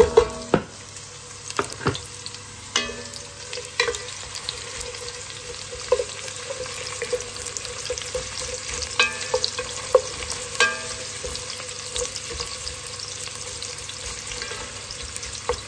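Sliced onions sizzling as they fry in hot groundnut oil in a stainless-steel pot, the onions tipped off a wooden board into the oil at the start. A wooden spatula stirs them, knocking and scraping against the metal pot every second or two.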